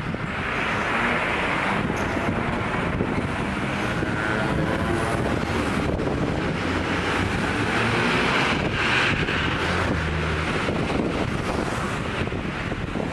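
Road traffic: cars driving past on a town street, swelling as vehicles go by about a second in and again around eight seconds, with wind noise on the microphone.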